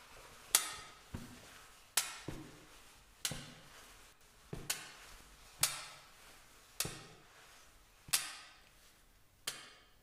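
A slow series of sharp knocks with a short ringing tail, about one every second or so, with two coming close together in places.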